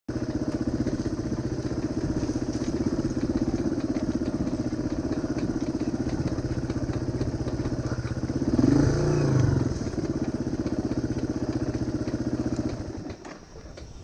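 Yamaha Serow 225's single-cylinder four-stroke engine pulling a dirt bike along a trail at a steady throttle. It revs up and back down once, about two-thirds of the way in, then the engine note drops away near the end as the throttle is closed.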